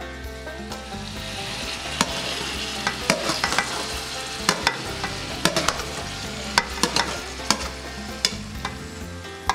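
Chopped guariroba (bitter palm heart) sizzling as it drops into hot oil in a stainless steel pot. It is being sautéed before water is added. A spoon scrapes and clinks repeatedly against the metal bowl as it pushes the palm in.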